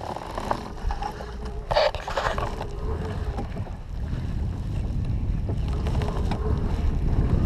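Wind buffeting the camera microphone, with a low rumble that grows louder through the second half. There is a short, brighter rustling burst about two seconds in.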